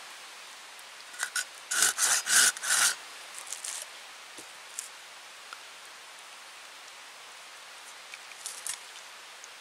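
A folding hand saw making about half a dozen quick strokes across a thin split wooden stave about a second in, then stopping. After that only a few light clicks and rubs as the wooden staves are handled and laid together.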